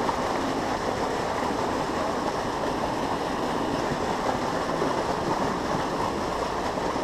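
Water pouring over a small cascade into a shallow stream: a steady rush of white water.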